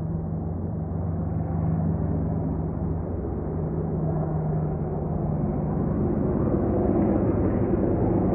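Boeing AH-64 Apache helicopter flying over: a steady low rotor and engine rumble that grows gradually louder as it approaches.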